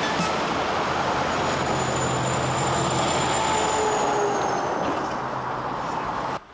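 Semi truck pulling a trailer along a highway: steady diesel engine hum under loud tyre and road noise, easing off near the end before cutting off suddenly.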